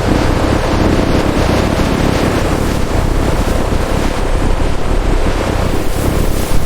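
Steady, loud rushing wind with a low rumble underneath.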